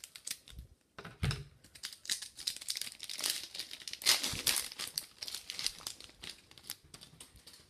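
Plastic wrapper of a Victory hockey card pack crinkling and crackling as it is opened and the cards are pulled out, in irregular runs that are busiest around the middle.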